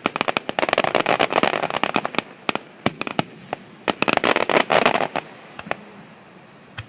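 Aerial fireworks going off in rapid volleys of sharp bangs and crackling. Two dense clusters come about a second in and about four seconds in, then thin out to scattered pops near the end.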